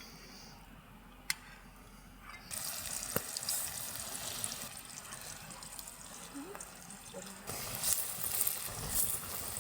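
Pakoras deep-frying in hot oil: a steady sizzling hiss with scattered crackles, which gets louder about two and a half seconds in.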